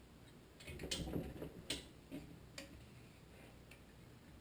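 Socket wrench ratchet clicking faintly as cylinder head bolts are tightened: a quick run of clicks about a second in, then a few single sharp clicks.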